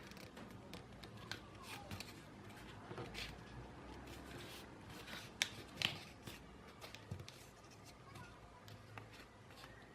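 A sheet of A4 paper being folded and creased by hand, with rustling and crackling and two sharper snaps of the paper a little past halfway.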